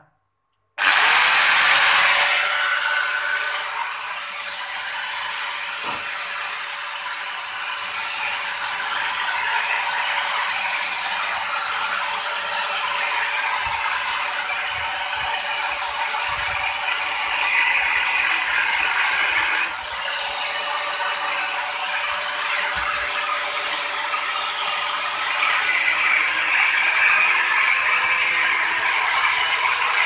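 Angle grinder with a cutting wheel spinning up about a second in to a steady high whine, then cutting into the steel shell of a refrigerator compressor, a harsher grinding noise coming and going as the wheel bites.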